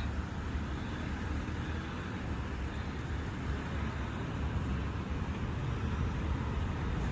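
Steady outdoor background noise, a low rumble under a faint hiss, with no distinct event standing out.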